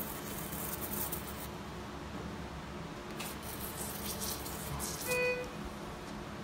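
Operating-room equipment hum with two stretches of hissing and one short electronic beep about five seconds in.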